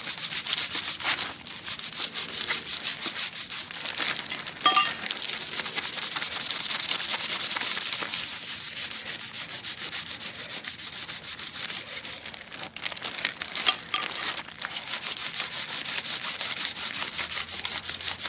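A Scotch-Brite pad scrubbing a freshly nickel-plated steel sprocket in quick, continuous strokes, buffing the plating residue off. Now and then there is a sharper knock, about four and a half seconds in and again near fourteen seconds.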